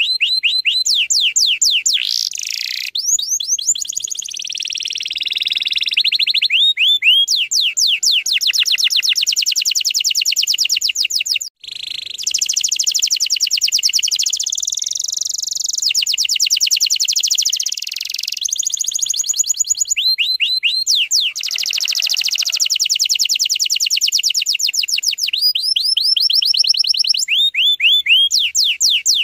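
Domestic canary singing a long, loud song of rapid, tightly packed trills: fast runs of repeated high notes, phrase after phrase, with only a momentary break about eleven seconds in.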